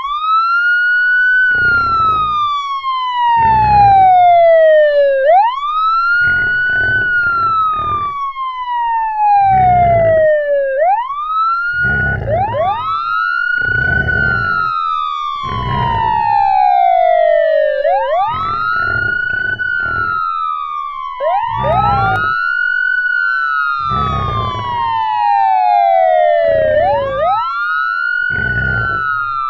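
Police siren wailing: each cycle rises quickly in pitch, then falls slowly, repeating about every five and a half seconds, with two slightly offset sirens overlapping from about twelve seconds in. Pig grunts ('oink oink') come in short pairs throughout.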